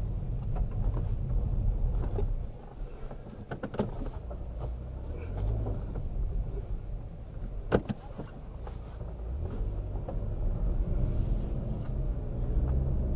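Car engine and road rumble heard from inside the cabin while driving, growing louder near the end. A few short clicks and knocks come through, the sharpest about eight seconds in.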